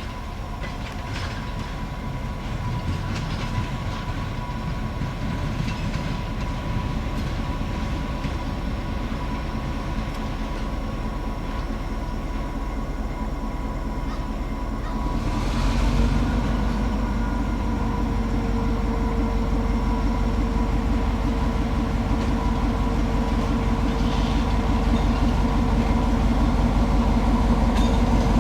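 EMD GP9 diesel-electric locomotive with a two-stroke 567 diesel running with a steady low rumble and a thin high whine. About halfway through it gets louder and settles into a heavier drone with a steady mid-pitched hum, as the locomotive works harder while switching cars.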